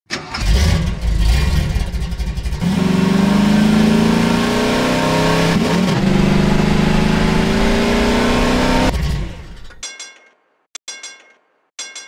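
Dubbed-in car engine sound effect: it revs, then accelerates with rising pitch, with a gear change about six seconds in, and fades out near ten seconds. Three short metallic dings follow.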